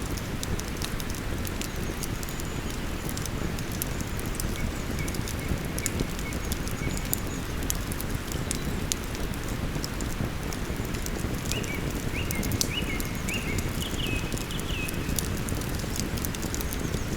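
Wood campfire crackling with frequent sharp pops over the steady rush of a flowing river. A bird sings a few short notes in the middle and again near the end.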